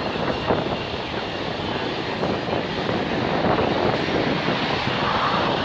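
Wind gusting on the microphone over the steady rumble of a long freight train's cars rolling past on the rails.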